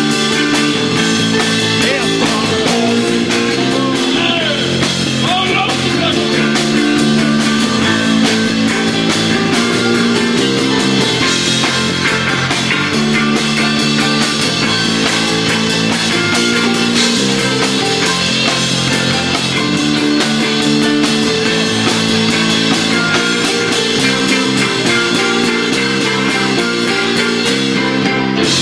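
Live rock band playing loudly and steadily, with electric guitars and a drum kit.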